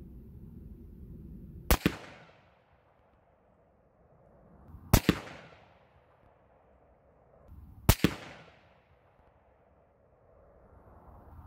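AR-15 rifle firing .223 handloads, three shots about three seconds apart, each a sharp double crack with a short echoing tail. The three shots make up a three-shot test group in load development for 68-grain Hornady BTHP bullets over Varget.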